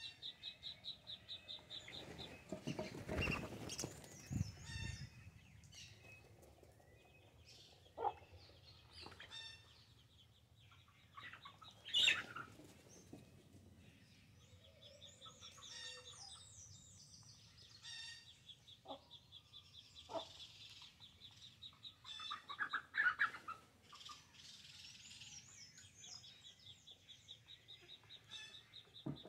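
Backyard chickens pecking at corn and giving scattered short clucks and calls, with a louder flurry about three seconds in. A fast, even chirping runs in the background, stopping and starting.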